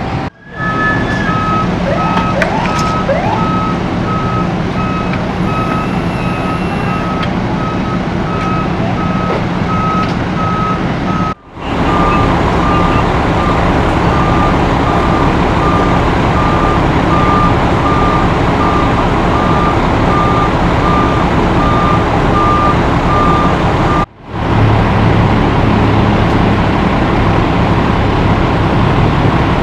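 Heavy diesel engines idling with a steady rumble, under a vehicle warning beeper sounding short, evenly spaced beeps at about two a second; the beeping stops near the end. The sound drops out sharply twice for a moment.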